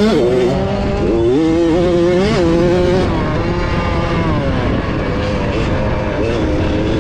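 65cc two-stroke motocross bike engine running under load, heard from the bike: its pitch climbs in steps over the first couple of seconds as it accelerates and shifts up, drops back, then holds fairly steady, over constant wind and track noise.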